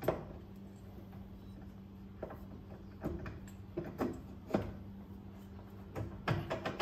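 Irregular metallic clicks and clunks as a golf cart's rear axle shaft is pushed into the transaxle housing and turned to get its splines to engage the gear teeth, with a cluster of quicker knocks near the end. A steady low hum runs underneath.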